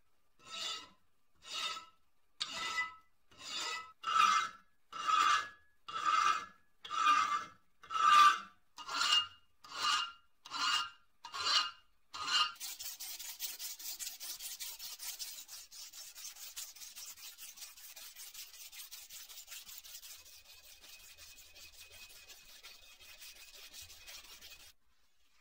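A file drawn across a new metal vise jaw piece in slow strokes, about one a second, each stroke carrying a ringing tone. About halfway through this gives way to continuous, quicker scratching as the piece is sanded.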